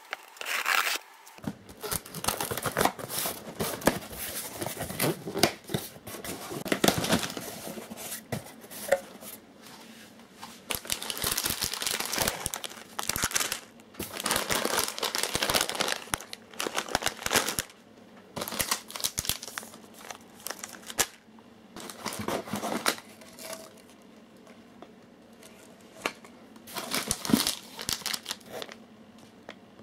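A cardboard box being opened and rummaged through, with plastic food packages crinkling as they are lifted out. The rustling and crinkling comes in irregular bursts with short pauses between them.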